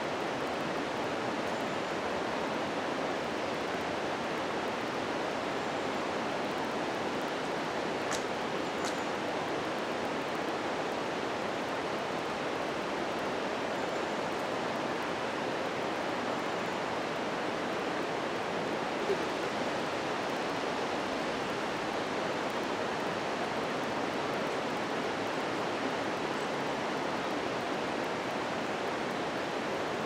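Steady, even rushing noise that does not change, with a couple of faint ticks about eight seconds in.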